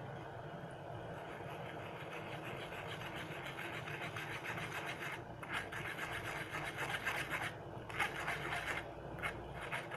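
A steel spoon scraping repeatedly inside a fine steel mesh strainer, pressing melted butter through it to hold back the impurities. The scraping strokes grow stronger about halfway through.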